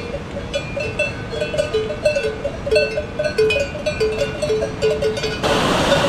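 Cowbells on grazing cattle clanking and ringing irregularly, a couple of strikes a second, several bells overlapping. About five and a half seconds in they give way to the steady rush of a mountain stream tumbling over rocks.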